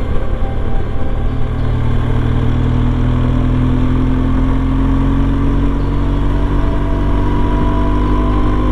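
BMW R1200GS Adventure's boxer-twin engine running steadily on the move, its pitch rising gently in the second half as the bike picks up speed. Heard from inside the rider's helmet, with a steady rush of wind and road noise.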